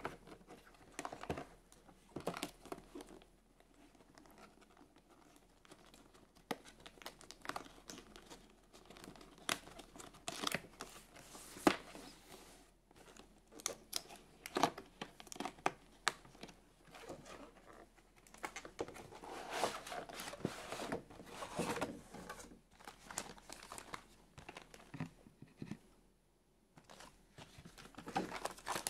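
A cardboard doll box with a clear plastic window being handled and opened by hand: irregular crinkling, tapping and short tearing sounds of the cardboard, tape and plastic packaging. There is a short pause near the end.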